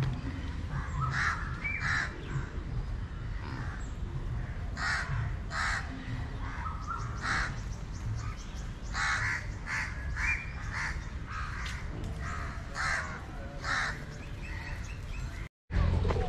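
Birds calling over and over in short, repeated calls, with a low rumble underneath; the sound cuts out for a moment near the end.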